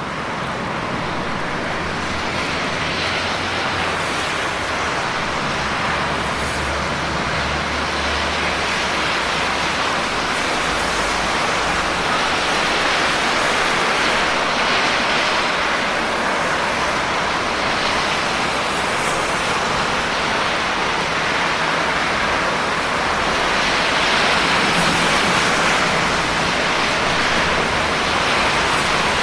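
Steady heavy rain, a dense even hiss that grows slightly louder as it goes on.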